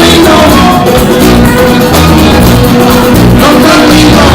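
Live band playing loud music, recorded on a mobile phone with very poor sound quality.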